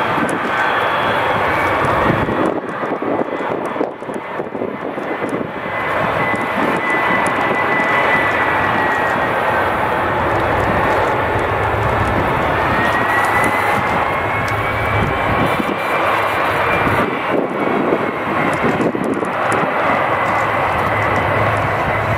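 The three turbofan engines of a KC-10 Extender tanker running on the runway: a loud, steady jet rush with a high whine that climbs a little about halfway through.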